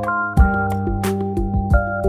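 Background music: held chords over a steady beat of drum hits.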